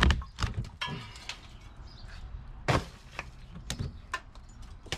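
Sharp, irregular knocks and cracks of wood as a sawn-out section of rotted porch beam is pulled loose and handled, with the loudest knocks right at the start and about two and a half seconds in.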